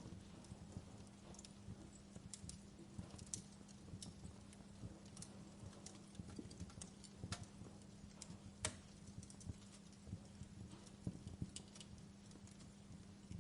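Wood fire crackling: irregular small pops and snaps, with two louder snaps about seven and nine seconds in, over a faint steady low hum.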